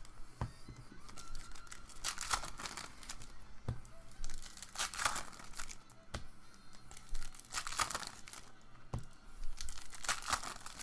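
Trading-card pack wrappers being torn open and crinkled, a short crackly burst about every two and a half seconds, with small clicks between.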